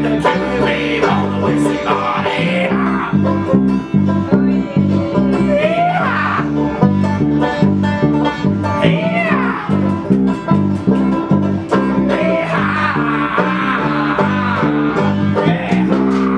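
Banjo, guitar and bass guitar playing a song together, with loud, shouted singing over the strumming.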